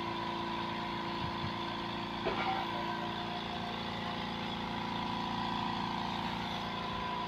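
A steady, even mechanical hum from a motor or engine running nearby, unchanging in pitch throughout.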